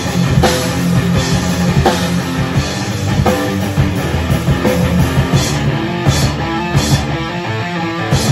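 A rock band playing live: electric guitar and a drum kit, with repeated cymbal crashes.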